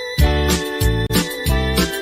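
Electronic keyboard instrumental of an old pop melody: sustained notes over a steady bass-and-drum beat of about two hits a second.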